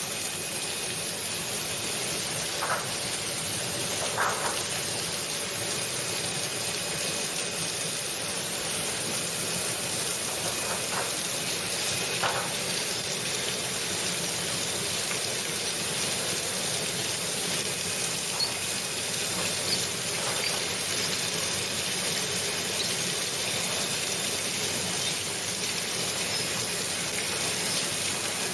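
Commercial fruit and vegetable washing machine running, with a steady rush of churning water and hiss and a few soft knocks in the first half.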